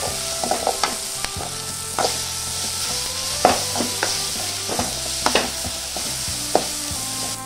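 Tomato-onion masala sizzling in oil in a kadai while a spatula stirs it, with scattered sharp clicks and scrapes of the spatula against the pan.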